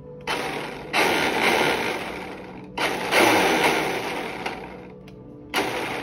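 Twin brushless motors of a Traxxas Villain EX RC boat, run out of the water from the transmitter, whirring up in three separate bursts that each start sharply and die away. It is the throttle fault the owner is chasing, which did not clear after reprogramming the ESC.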